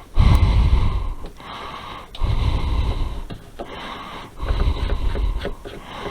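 Puffs of air rumbling across the microphone, three of them about two seconds apart, each lasting about a second.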